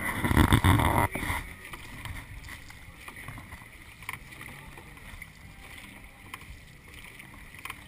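Dragon boat paddles stroking through river water, with repeated small splashes and water noise. A loud rumble on the camera microphone in the first second and a half.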